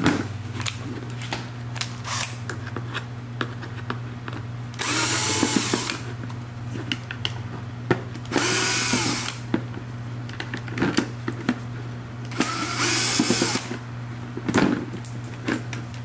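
Cordless drill-driver backing three small screws out of a plastic window switch housing: three runs of about a second each, the motor's pitch rising and falling, with light clicks of handling between them over a steady low hum.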